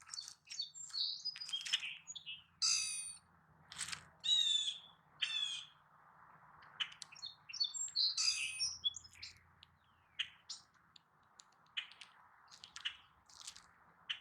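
Small songbirds chirping and calling: many short, overlapping high notes and trills, with a faint steady hum underneath.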